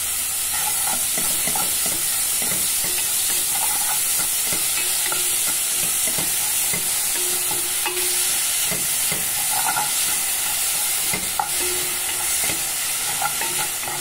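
Diced tomato, onion and peppers sizzling in hot oil in a metal pot while a wooden spoon stirs them, with steady frying hiss and frequent small scrapes and knocks of the spoon against the pot.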